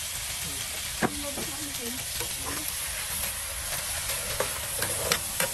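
Oil sizzling steadily with red chilies in a frying pan, while a metal ladle stirs and clicks against the pan: once about a second in, then several times near the end.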